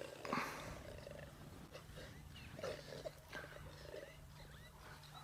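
Faint, low growling of a lioness at her kill.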